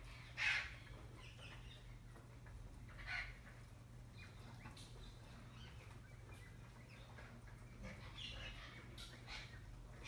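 Green parrots giving a few short calls: the loudest about half a second in, another around three seconds, and a scatter of calls near the end.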